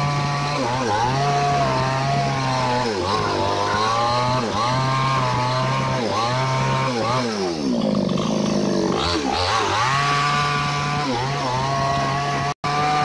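Falcon Evo5800 two-stroke chainsaw at full throttle, ripping lengthwise along a log to cut boards. The engine note sags under load and recovers every second or so, with one deeper sag about eight seconds in before it picks up again. The sound drops out for an instant near the end.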